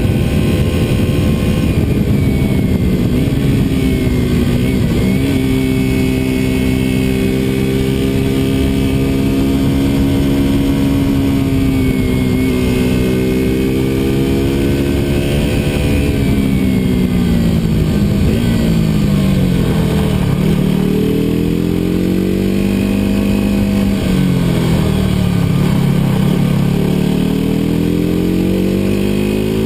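KTM RC200's single-cylinder four-stroke engine under way, with wind and road noise. The engine note holds fairly steady for the first half, then drops and climbs again several times as the revs fall and rise.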